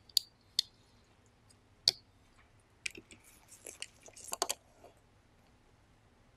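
Sheet-metal plates of a Panasonic RQ-2730 cassette mechanism clicking as they are set in place: three sharp single clicks in the first two seconds. From about three to five seconds in comes a run of small scraping clicks and rattles as a screwdriver turns a screw into the plate.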